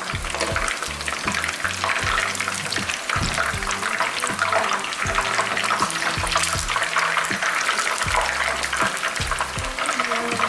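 Flour-coated chicken wings deep-frying in hot oil, a dense crackling sizzle, over background music with a bass line.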